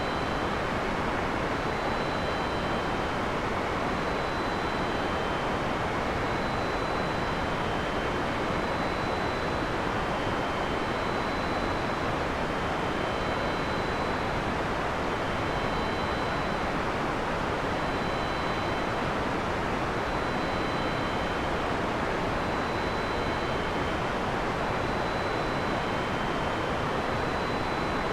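Steady heavy rain: an even, unbroken hiss with no thunder. Faint high-pitched tones repeat evenly about once a second behind it.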